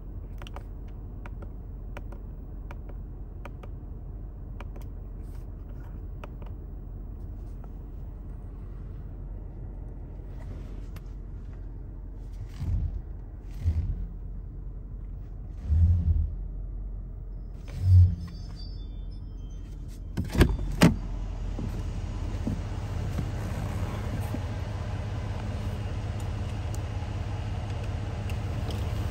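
Mercedes-AMG 5.5-litre twin-turbo V8 idling steadily, heard from inside the cabin. A few dull low thuds come midway, and two sharp clicks about twenty seconds in. After the clicks the idle sounds louder and fuller, as the driver's door stands open.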